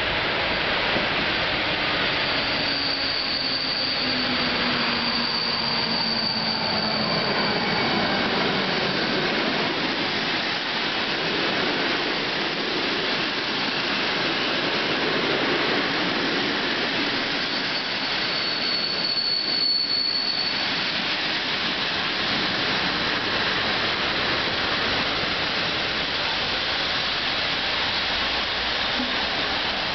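Locomotive-hauled passenger train running past close by: a steady loud rush of wheels on rails. A low tone falls in pitch over the first several seconds as the locomotive goes by, and a thin high squeal comes twice.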